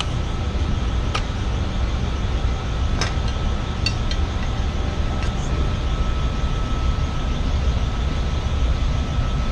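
Steady low rumble of running HVAC air-handling equipment with a faint, steady high whine, and a few light clicks as wires are handled at a KMC controller's terminal block.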